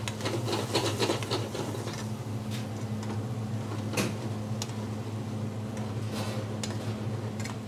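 Metal spoon stirring and scraping in cooking pans, a busy run of scrapes and clinks in the first second and a half and a sharp clink about four seconds in, over a steady low hum.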